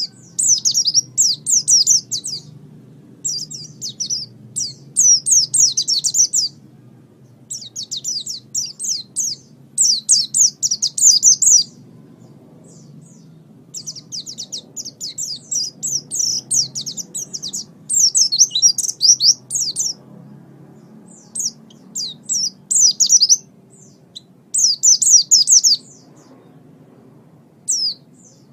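A small songbird singing in rapid, high-pitched chattering phrases of a second or two each, separated by short pauses.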